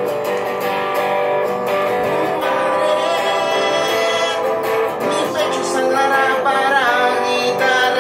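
Acoustic guitar strummed live, with a man singing over it, his voice wavering on held notes in the second half.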